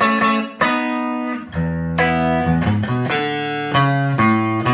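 A 1959-style Telecaster electric guitar on its neck pickup, played clean through a 5F4 tweed amplifier with no effects. It plays a string of picked chords and single notes, with low bass-string notes coming in about a second and a half in.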